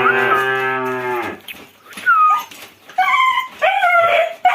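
A tethered calf mooing: one long, steady call that ends a little over a second in. It is followed by a short high chirp and a voice near the end.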